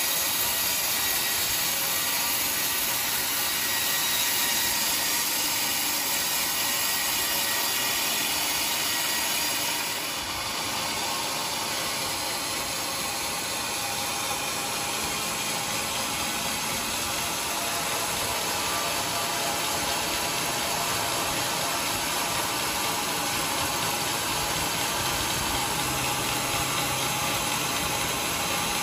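Large vertical band saw ripping a teak log lengthwise: a steady, even noise of blade and motor, dipping slightly about a third of the way in.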